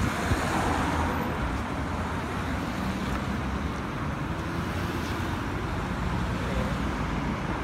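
Road traffic on a roundabout: cars, a van and a single-decker bus going round, a steady rumble of engines and tyres with no single loud event.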